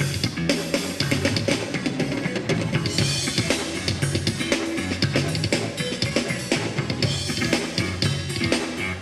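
Band playing an instrumental groove without vocals: a drum kit keeps a steady beat of kick and snare over a repeating bass line.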